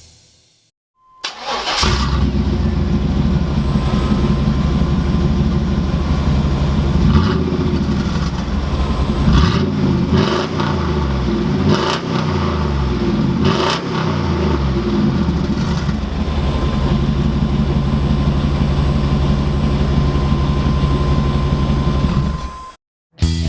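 1999 GMC Yukon's 5.7L V8 with no muffler fitted, starting about a second in and idling. It is revved several times, rising and falling, then settles back to a steady idle before cutting off near the end.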